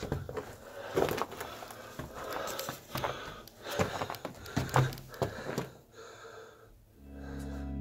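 Irregular crunching and scuffing of a person moving over loose rock and gravel in a low, cramped mine tunnel, with hard breathing between the crunches. Near the end a low steady drone comes in.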